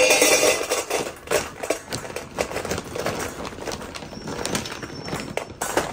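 Dry bone-shaped dog biscuits poured from a bag into a stainless steel bowl, clattering against the metal and each other in a rapid stream of clicks, loudest right at the start.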